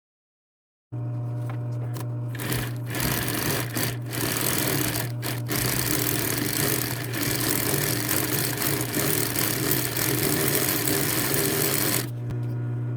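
Pfaff 545 industrial sewing machine: its motor hums steadily, then about two seconds in the machine runs at speed for roughly ten seconds and stops near the end while the motor keeps humming. It is running on two replacement gears that were fitted in place of original Pfaff gears that are no longer made.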